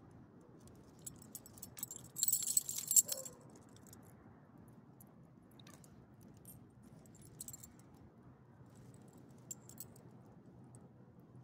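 Small metal pieces jingling together for about a second, starting about two seconds in, followed by a few faint clicks.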